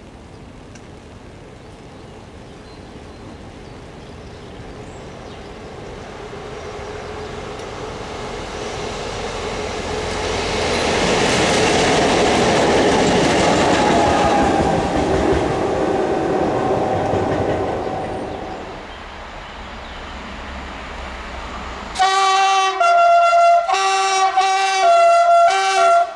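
SNCF BB 67200 diesel locomotives running light pass by, their engines and wheels swelling to a peak and fading away. Then, suddenly, a BB 67400 diesel locomotive heading a convoy sounds its two-tone horn in a run of short blasts switching between two pitches, louder than the passing engines.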